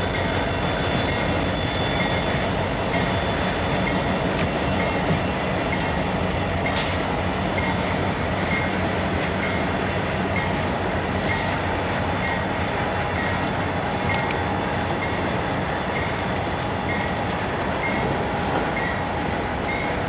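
Freight train rolling past, with the steady rumble of CN diesel-electric locomotives and the wheels of the freight cars. A faint short high blip repeats about every three quarters of a second.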